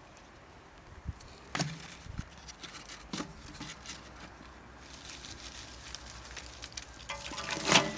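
Scattered knocks, clicks and rustles of objects being handled, denser toward the end with one louder clatter just before it stops.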